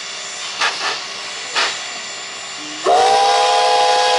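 Class 52 steam locomotive standing in steam, with a steady hiss and two short puffs of steam in the first two seconds. A little under three seconds in, its steam whistle starts: a loud, steady chord of several notes that is still sounding at the end.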